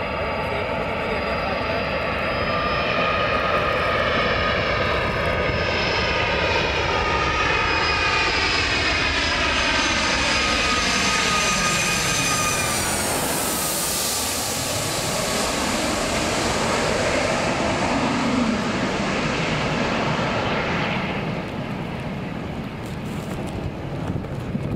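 Jet airliner's twin engines on a low landing approach, a roar with a whine that slowly rises in pitch, then drops sharply as the plane passes overhead about halfway through. The sound fades away after that.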